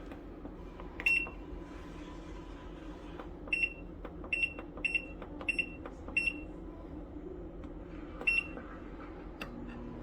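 Nictemaw portable washing machine's control panel beeping as its buttons are pressed: seven short high beeps, one about a second in, five in quick succession in the middle and one near the end, over a steady low hum.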